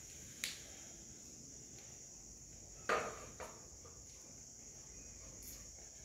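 A steady, high-pitched insect trill. A sharp knock about three seconds in, the loudest sound, is followed by a softer one, and a light tap comes about half a second in.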